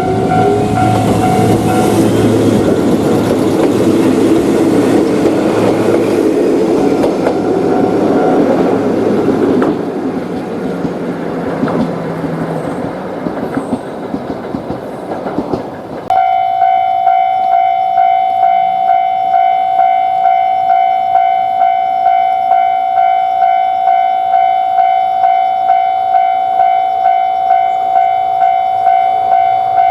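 An Ichibata Electric Railway train passing over a Japanese level crossing, its wheels running over the rails and its motor whine rising at the start. The crossing's electronic alarm bell stops about two seconds in, and the train noise fades away. About halfway through it switches abruptly to a level-crossing alarm ringing its loud, evenly repeating kan-kan tone.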